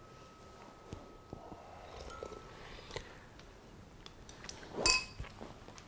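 Spoons clinking against ceramic bowls as people eat: scattered light taps, then one louder ringing clink near the end.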